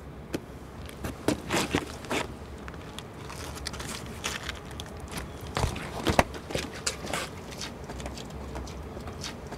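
Footsteps and rustling clothes of two people getting up and walking down stone steps: irregular scuffs, taps and crackles, with the sharpest clicks about a second in and around six seconds in.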